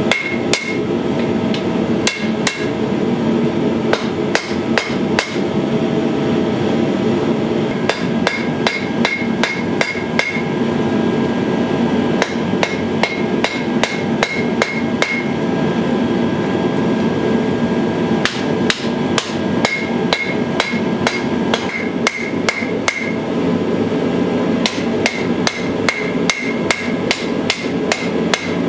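Hand hammer striking red-hot sword steel on an anvil while forging a gladius blade: fast runs of blows with short pauses between them, the anvil ringing after many strikes. A steady low rush lies underneath.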